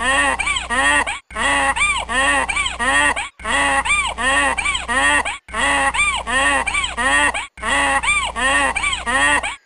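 An animal call sound effect, the same two-second clip of about four rising-and-falling calls played over and over, about five times, with a brief break between repeats.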